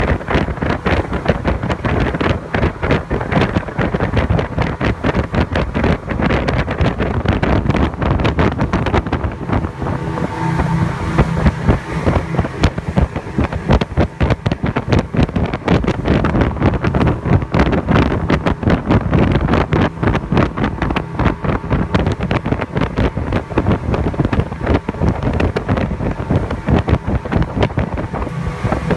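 Speedboat running fast across open water: a steady engine drone under heavy, irregular wind buffeting on the microphone.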